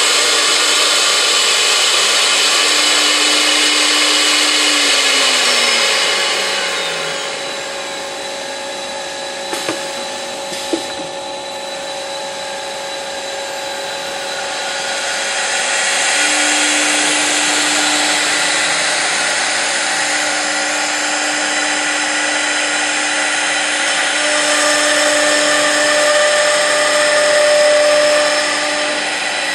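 Multi-spindle CNC router working a wood panel: high-speed spindle motors whining over the hiss of the cutting. About five seconds in, a spindle's whine falls away as it winds down and the machine goes quieter, with two sharp clicks near ten seconds. From about sixteen seconds a spindle whine returns and the cutting noise grows louder again.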